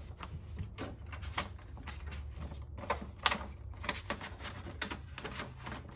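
Sublimation roll paper being handled and fed into the printer's roll slot: irregular paper rustling with light clicks and taps against the printer's plastic, over a steady low hum.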